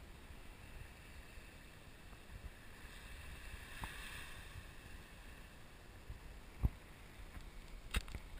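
Low wind rumble on the camera microphone, with a faint hiss in the middle, one sharp thump past the middle and a click near the end, typical of a handheld camera being moved.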